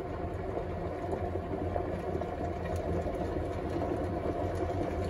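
Pot of water at a full rolling boil on a stove: a steady bubbling noise with a low hum under it.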